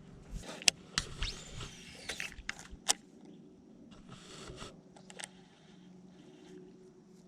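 Handling noise: a cluster of sharp clicks and knocks with a brief rising-and-falling squeak in the first few seconds, then a short rustle, over a faint steady hum.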